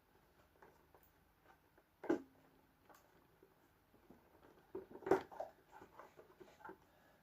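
Quiet handling of electrical cable and terminals, with two sharp knocks about two and five seconds in, the second one the louder, and a few light rustles and clicks around it.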